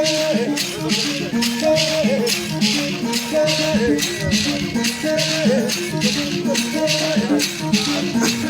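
Background music with a steady shaker beat, about three strokes a second, under pitched instrumental notes and a repeating melody.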